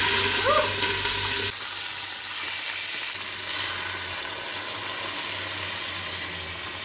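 Chicken breasts sizzling in hot olive oil in a stainless steel pot. After about a second and a half the sound becomes a steady sizzle and hiss as beer is poured into the hot pot to deglaze it, sending up steam.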